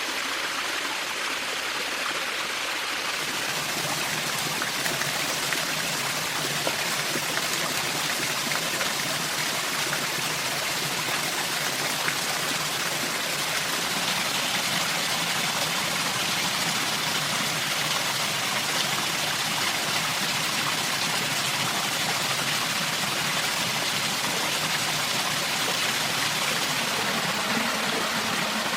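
Steady rushing and trickling of flowing water, like a stream.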